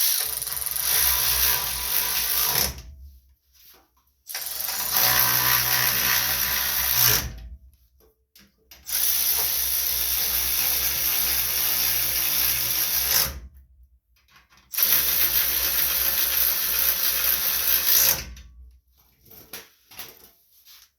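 Power drill running in four bursts of a few seconds each, driving bolts to tighten down the engine shroud.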